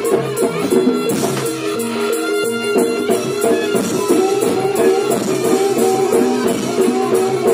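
Live Javanese gamelan accompaniment for barongan dance: tuned metal percussion plays repeating notes over a fast, steady jingling beat.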